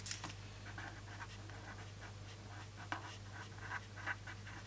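Pen writing on planner paper: a run of faint, quick scratching strokes. A page of the planner insert is turned right at the start.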